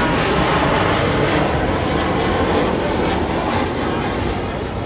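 Airplane flying overhead: a loud, steady rushing noise that eases slightly near the end.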